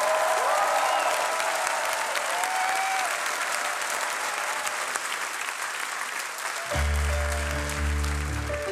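Studio audience applauding, with a few voices heard over it in the first seconds. About two-thirds of the way through, a piano comes in with sustained opening chords of the song while the applause carries on.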